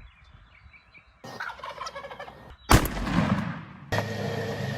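A wild turkey gobbler gobbling, then a single sharp, loud shotgun blast that dies away, the loudest sound here. Near the end a steady noise begins abruptly.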